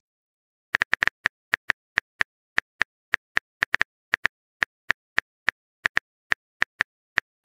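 Phone keyboard key-click sound effect from a texting-story app: a quick run of short, sharp ticks, one per letter as a message is typed, irregularly spaced at roughly three to five a second, starting just under a second in.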